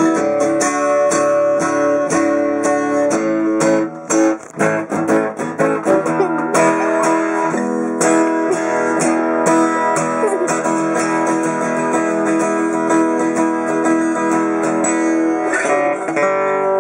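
Martin SWDGT steel-string acoustic dreadnought guitar played in a run of strummed chords, with a brief lighter, sparser passage about four seconds in before the strumming resumes.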